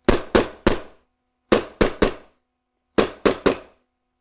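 Novritsch SSP-1 gas blowback airsoft pistol (Hi-Capa pattern) dry-fired on gas with no BBs, its slide cycling on each shot: nine sharp shots in three quick strings of three. It now has a cutout slide and short stroke kit fitted, so the slide travels a shorter stroke and cycles quicker.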